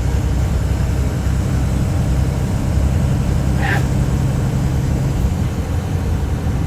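Road-vehicle noise in heavy rain: a steady low rumble with a continuous hiss. A brief higher tone cuts through about three and a half seconds in.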